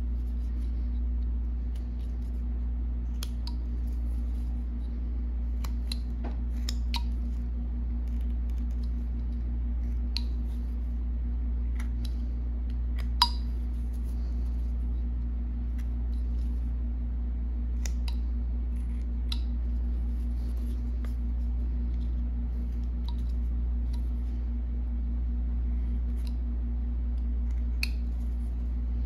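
Small carving knife whittling a wooden carving by hand: scattered short slicing snicks and scrapes as chips come off, with one sharper click about halfway through, over a steady low hum.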